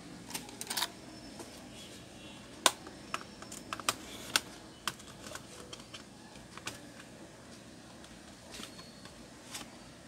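Sharp plastic clicks and snaps from a Lenovo ThinkPad T430 laptop's case being handled and pried at by hand, in irregular clusters: a burst near the start, the loudest run between about a quarter and half of the way through, and a few scattered clicks after.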